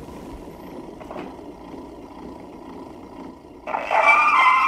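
Horn gramophone: a steady hiss of surface noise, then about three and a half seconds in, music starts playing from the record.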